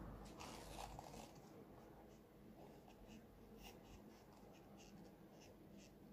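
Faint scraping and light, irregular clicks of a wooden stir stick against a clear plastic cup as thick two-part epoxy resin is stirred.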